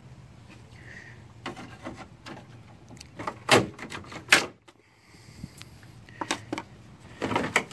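Handling noise: a few sharp clicks and knocks, the two loudest about three and a half and four seconds in, with smaller ones near the end.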